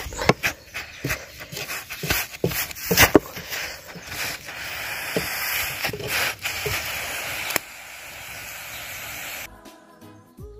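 A wooden stirring stick knocks and scrapes against a metal saucepan of stiff posho (maize-meal porridge) cooking over a wood fire. Then there is a steady hiss for a few seconds.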